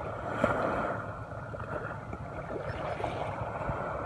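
Small waves lapping at the shoreline, a steady watery rushing.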